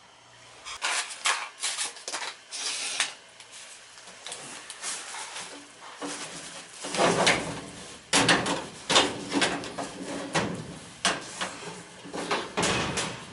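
Irregular clattering and scraping of sheet-metal parts being handled and slid into place as the furnace blower assembly is put back in, with a quieter spell in the middle and the loudest knocks in the second half.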